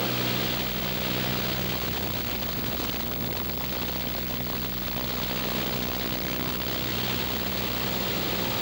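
Cessna light aircraft's piston engine and propeller droning steadily in flight, with a constant rush of air noise.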